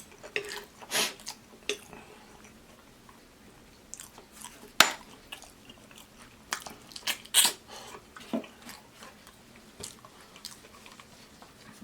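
Close-miked eating sounds of someone eating oxtails: irregular wet chewing, biting and lip smacking. A sharp smack about five seconds in is the loudest, and a cluster of louder ones follows a couple of seconds later.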